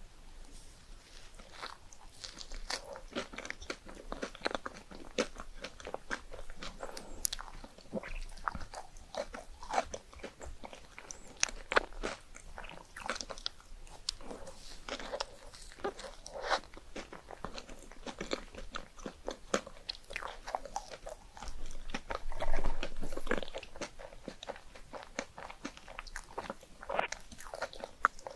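Close-miked eating of chocolate ice cream: crisp crunching bites and wet chewing, with irregular clicks and crackles throughout and a louder stretch of chewing about two-thirds of the way in.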